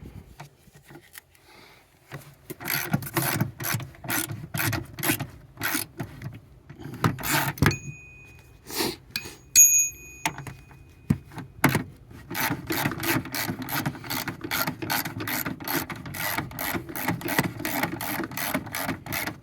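Hand ratchet wrench clicking while backing out a 10 mm seatbelt bolt, a few clicks a second, then faster and steadier from about two-thirds of the way in. Two brief high ringing tones near the middle, between the bursts of clicking.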